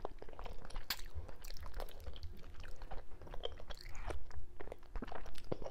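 A person eating fufu with slimy okra and ogbono soup by hand, close to the microphone: chewing and smacking, with many short, irregular clicks.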